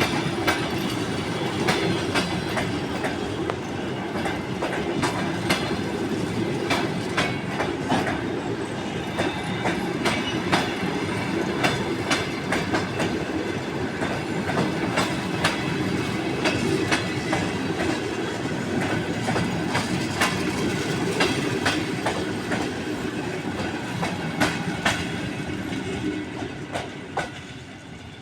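Passenger coaches of an express train rolling along the track, a steady rumble broken by the clicks and clacks of wheels over rail joints; it fades away near the end.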